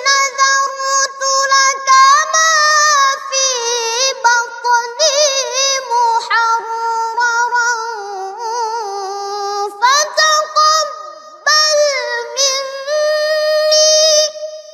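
A boy's high voice reciting the Quran in a melodic, chanted style, holding long notes with quick wavering ornaments and short breaks for breath. The recitation stops right at the end.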